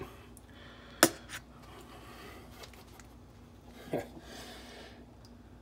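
Plastic cap of a conditioner bottle clicking open about a second in, with a smaller click just after. A soft squirt near four seconds as conditioner is squeezed into a palm.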